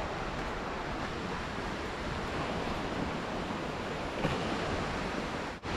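River water rushing as a steady, even noise, breaking off for an instant near the end.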